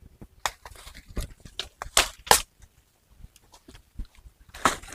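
Scattered light rustles and sharp clicks, about a dozen short irregular sounds, the two loudest close together about two seconds in.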